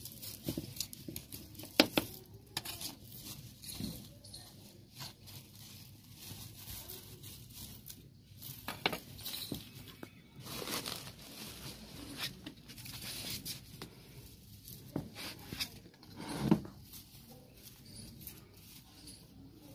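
A small hand tool scraping and digging through dry soil and dead leaves in a terracotta pot, with dry leaves and twigs rustling and crackling as they are handled and pulled off the plant. A sharp click about two seconds in and a dull knock near the end stand out.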